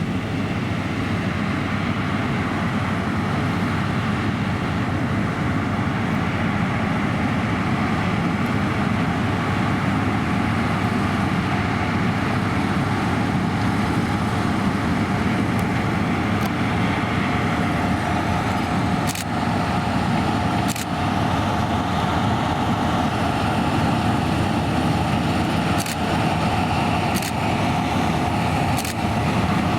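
Claas Lexion 580 Terra-Trac combine harvester running steadily at work combining barley, with a steady whine in the second half and a few short sharp knocks near the end.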